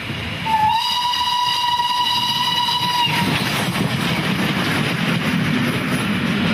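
Steam locomotive's whistle blown once for about two and a half seconds, sliding up slightly in pitch as it starts, then the locomotive and its coaches passing close by with a loud rumble and wheel clatter.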